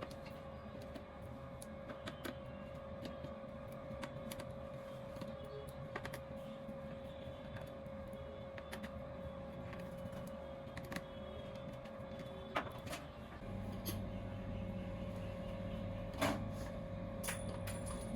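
Faint scattered clicks and taps of a screwdriver working the screws out of a laptop's back panel, over a steady hum; a lower hum joins about thirteen seconds in.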